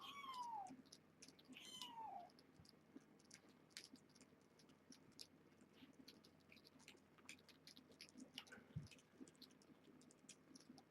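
A cat meows twice, each call falling in pitch, followed by faint scattered clicks and smacks of cats eating wet food.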